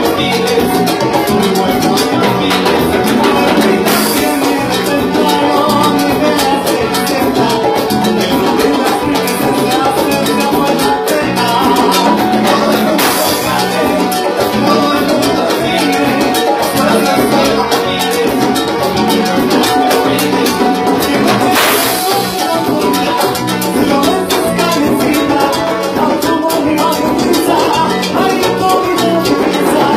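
Live band music with electric guitar and congas, played with a steady Latin-style groove.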